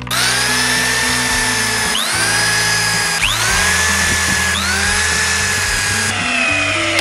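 Corded electric drill boring into pallet wood. The motor spins up with a rising whine four times in quick succession, each time settling into a steady run.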